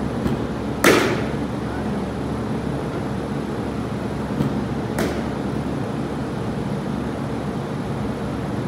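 A bat hitting a baseball twice during batting practice, about four seconds apart. The first crack, about a second in, is the louder and rings briefly. Each hit comes about half a second after a faint click, over a steady hum.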